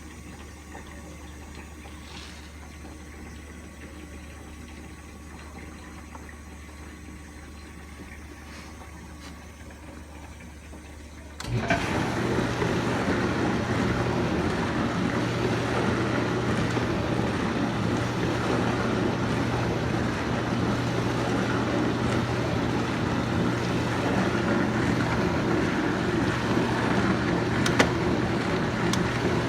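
Whirlpool dishwasher running: a quiet low hum, then about eleven seconds in the wash pump motor kicks in. The sound jumps to a loud, steady rush of spraying water over a motor hum.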